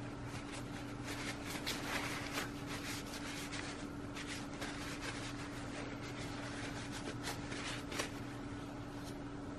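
Paper towel rustling and crinkling against pruning shears as the blades are wiped clean before a cut, in short irregular crackles. A steady background hum runs underneath.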